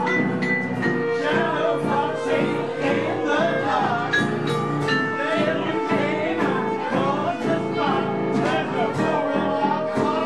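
A small live band playing, with a vibraphone struck with soft mallets and a lead melody that slides in pitch.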